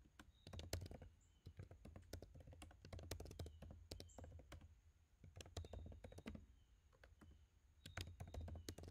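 Faint typing on a computer keyboard: short bursts of keystrokes with brief pauses between them, each burst one word being typed.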